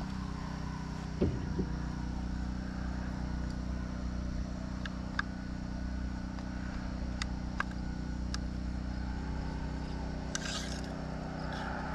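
A few faint, sharp metal clicks and a soft knock as an M&P 15 rifle's charging handle and bolt carrier are worked in and out of the upper receiver during a bolt swap. Underneath is a steady low engine-like hum.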